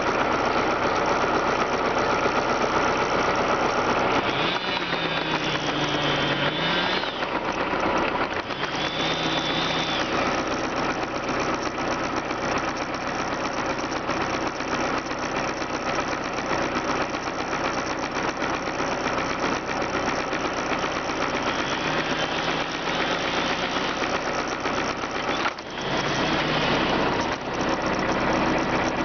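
An engine running steadily and loudly, its pitch shifting briefly several times.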